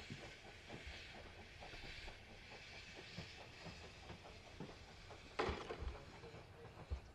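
LNER Class J72 0-6-0 tank engine running toward the station at a distance, with a steady hiss of steam over low, irregular thumps. A single sharp knock stands out about five seconds in.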